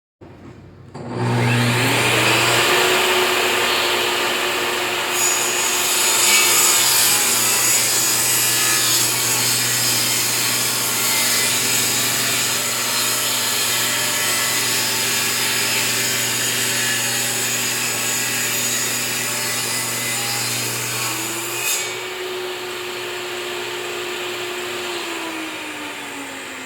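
Table saw motor starting up and running, its blade cutting through a white oak board for about sixteen seconds. It is then switched off and winds down in the last few seconds.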